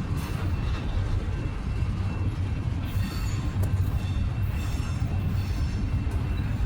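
Freight train cars rolling past, a steady low rumble of wheels on rail with no break or horn.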